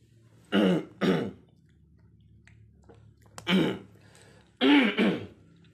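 A man clearing his throat with short coughs: two quick ones about half a second in, another after about three and a half seconds, and a longer one near the end.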